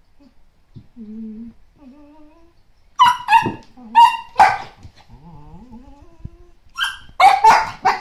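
Two dogs, an adult and a 13-week-old puppy, play-fighting: low, rising whine-like sounds, then sharp, high barks in two bursts, one about three seconds in and one near the end, with quieter low sounds between.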